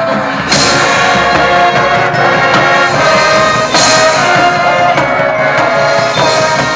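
A high school marching band's brass section playing held chords over drumline percussion. There are loud full-band accents with crashing highs about half a second in and again just before four seconds.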